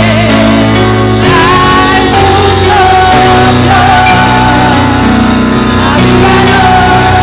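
Live church worship music: held keyboard chords that change every second or two, with a woman's voice singing a wavering melody over them through the sound system.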